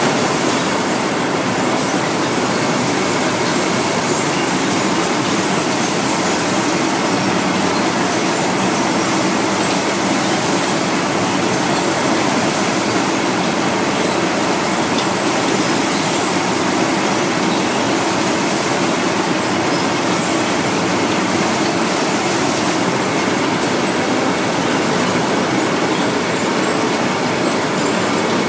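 Industrial nut roasting machine running: a loud, steady, dense mechanical rattle with a faint whine.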